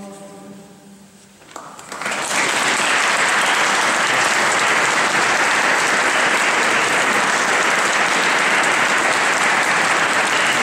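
A men's a cappella choir holds its final chord, which fades away about a second and a half in. The audience then breaks into applause, building within a second to steady, loud clapping.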